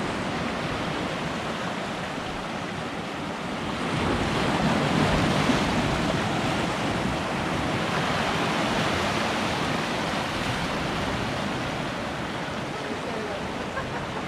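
Ocean surf breaking and washing on the shore: a steady rush of seawater that swells louder about four seconds in, then eases.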